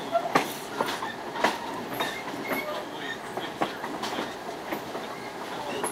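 Train rolling along the track, heard from on board: irregular clacks and knocks from the wheels and car, with a few brief squeaks.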